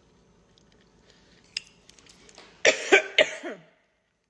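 A person coughing: about three quick, loud coughs in a row a little under three seconds in, preceded by a single click.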